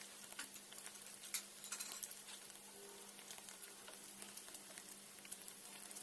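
Paneer cubes frying in melted butter in a nonstick kadai: a faint, steady sizzle with scattered small crackles and pops, most of them in the first two seconds, as the second side of the cubes fries.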